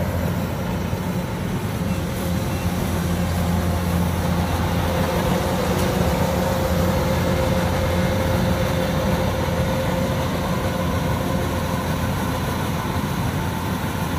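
Kubota DC105X combine harvester running steadily, its diesel engine and machinery giving a constant drone with a steady low hum.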